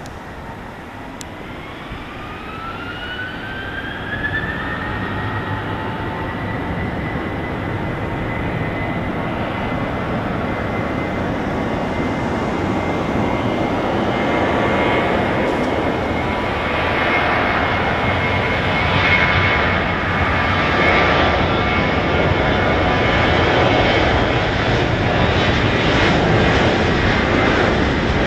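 Boeing 737-900ER's twin CFM56-7B turbofan engines spooling up to takeoff thrust. A rising whine over the first few seconds settles into a steady high tone, under engine noise that grows steadily louder as the jet accelerates down the runway.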